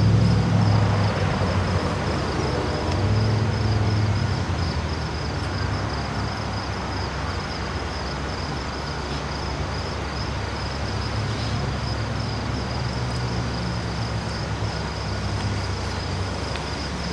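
A stopped Metra commuter train's diesel locomotive idling with a steady low hum, while insects keep up a high, even pulsing trill.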